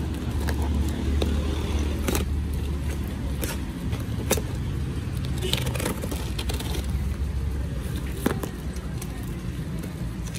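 Box cutter slitting packing tape on a cardboard parcel: scattered scrapes and sharp clicks over a steady low rumble.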